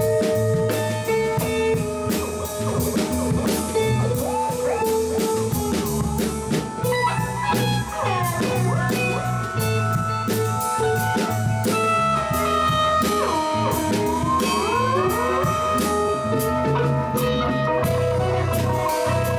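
Live band playing a blues-rock number on electric guitars over a drum kit beat. Several guitar notes slide up and down in pitch partway through.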